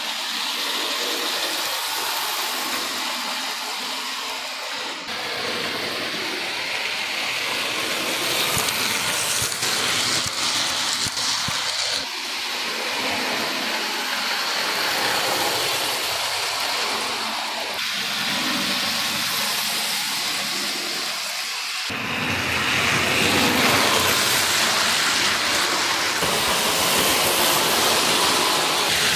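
Hornby OO-gauge Class 37 model locomotive running around the layout with its Mark II coaches: a steady whirring hiss from the motor and the wheels on the track, growing louder near the end as the train passes close by.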